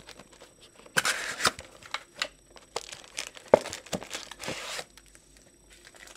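Cardboard trading-card hobby box torn open by hand, a run of rips and crinkles with a few sharp snaps, starting about a second in and stopping just before five seconds in.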